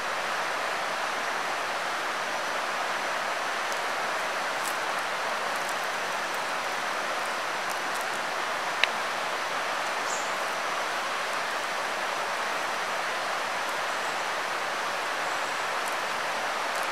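Steady rushing of a stream flowing close by, with one sharp click about nine seconds in.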